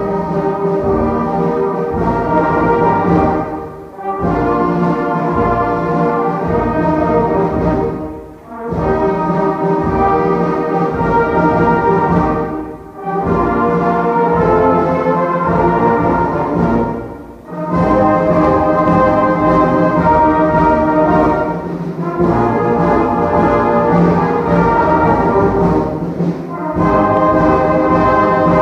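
Brass band playing a slow, chordal piece in phrases of about four seconds, each ending in a brief break.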